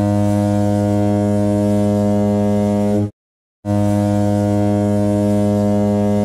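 A deep single-note horn sounding in two long, steady blasts, with dead silence in the short gap between them.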